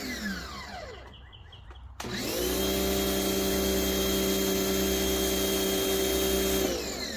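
Pressure washer motor spinning down to a stop, then starting again about two seconds in with a quickly rising whine that settles into a steady run, and spinning down again near the end.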